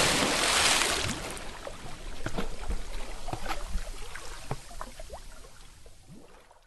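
Water splash settling: the rush of spray fades over the first second, then scattered drips and small plops that die away near the end.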